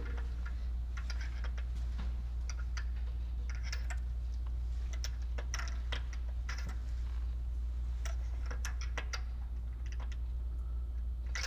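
Scattered light clicks and taps of a spark-plug socket and hand tools being worked down into a coil-pack tube, at irregular intervals, over a steady low hum.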